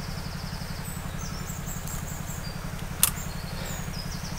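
A small motor running with a steady, evenly pulsing low throb, with birds chirping over it and one sharp click about three seconds in.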